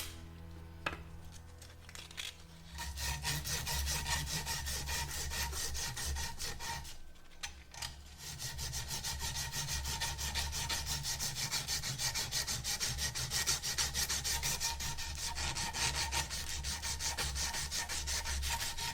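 Sandpaper rubbed rapidly back and forth on the end of a half-inch copper pipe, cleaning it before soldering, with a short pause about seven seconds in.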